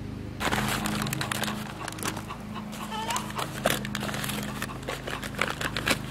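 A bag of seed potatoes rustling and crinkling as potatoes are pulled out of it by hand, over a steady low hum.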